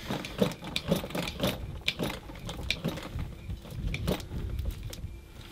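Hydraulic hand crimper being pumped to crimp a lug onto a heavy DC battery cable: an uneven run of mechanical clicks and knocks, roughly two or three a second.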